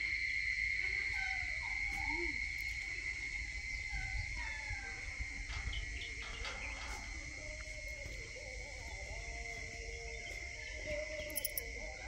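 Morning rural ambience: a steady, high insect trill throughout, with assorted birds calling over it in short, curved phrases, and a few longer held notes near the end.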